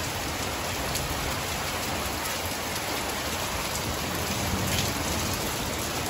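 Heavy thunderstorm rain pouring, a steady even hiss with a few sharper drop taps close by.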